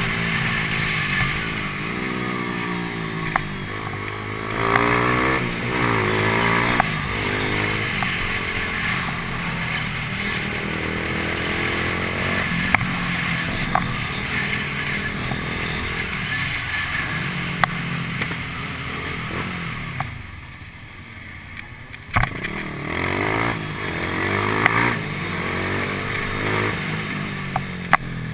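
Motorcycle engines accelerating through the gears, the pitch rising and dropping again and again, over wind rush on the bike-mounted microphone. Sharp ticks come now and then, and the engines ease off for a moment about twenty seconds in.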